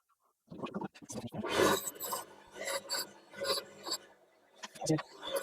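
Rasping strokes of a hand tool worked on a metal part, about two a second, starting about half a second in.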